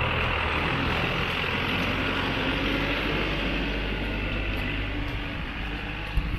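Street traffic: a vehicle engine's low rumble under a steady hiss of passing traffic, the rumble easing about a second in. A short knock comes just before the end.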